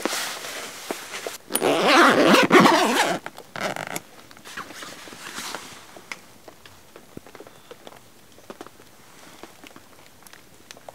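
A zipper on camping gear being pulled open in a couple of quick runs, with fabric rustling, loudest in the first few seconds; after that only light rustling and small clicks.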